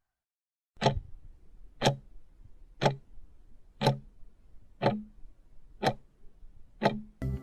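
A clock ticking steadily, seven ticks about one second apart after a short silence.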